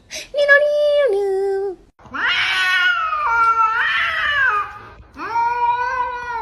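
A cat meowing in three long, drawn-out calls; the middle one is the longest and wavers up and down in pitch.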